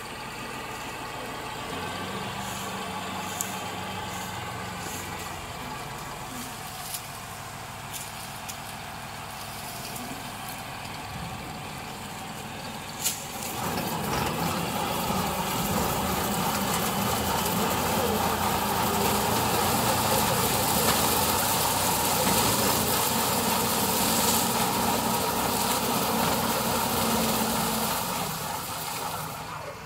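New Holland tractor's diesel engine running steadily, with a sharp click about halfway through, after which it grows louder and fuller as the tractor-mounted sugarcane harvester cuts through standing cane.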